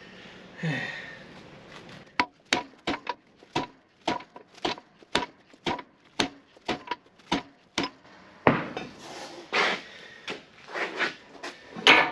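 Hammer blows on a punch driving a stuck steel pivot pin out of a loader arm: a steady run of sharp, slightly ringing metal strikes about two a second, then a rougher stretch of irregular knocks and clatter near the end.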